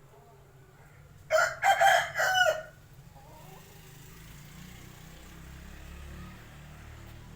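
Aseel rooster crowing once, a short crow of about a second and a half broken into a few segments, about a second in. A faint low rumble continues underneath afterwards.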